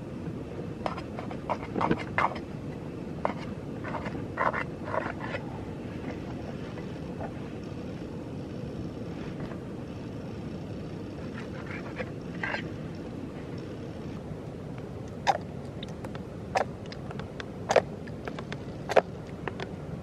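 A steady low rumble under scattered taps and scrapes of bread being cut and handled on a steel plate. Near the end comes a run of sharp clicks about a second apart.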